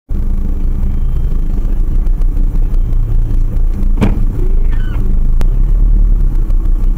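City bus's engine running as it pulls past very close, heard through a dashcam inside a stopped car. There is a sharp knock about four seconds in, as the bus comes alongside, then a brief falling squeal and another sharp click about a second later.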